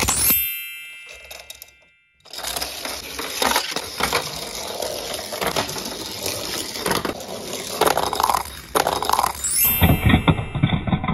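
Die-cast toy cars rolling and clattering down a plastic spiral ramp, many sharp clicks and knocks as they bump along the track. Near the end the rattling gets heavier and deeper.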